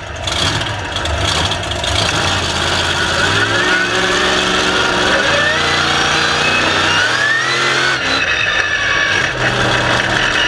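Monster truck engine running hard as the truck drives, heard right at the chassis. Its pitch steps up and down several times, with a higher whine that rises twice.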